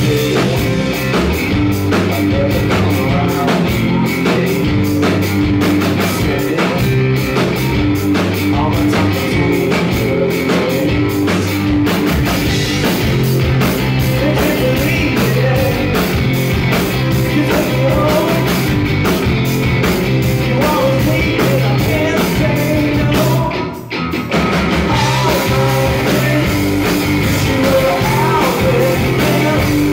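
Live rock band playing loud: electric guitar, bass and drum kit with a lead singer. The band stops briefly about 24 seconds in, then crashes back in.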